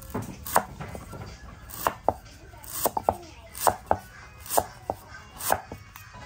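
Knife chopping food on a cutting board: a dozen or so sharp, irregular strikes, sometimes two or three in quick succession.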